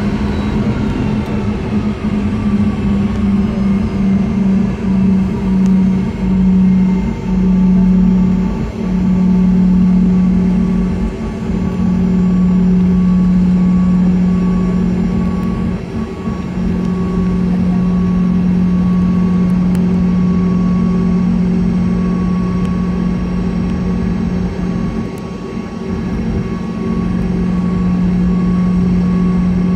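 Cabin sound of a Boeing 717's two rear-mounted Rolls-Royce BR715 turbofans at taxi power: a steady rumble with a strong low hum and a fainter higher tone. The hum throbs at first, the throbs slowing until it holds steady about twelve seconds in.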